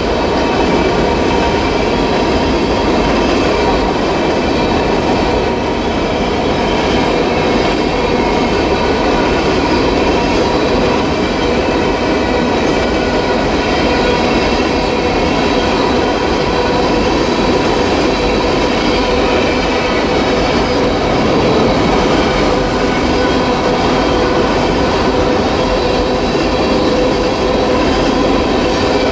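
Covered hopper cars of a freight sand train rolling past: a steady rumble of steel wheels on the rails, with a steady high-pitched squeal of the wheels over it.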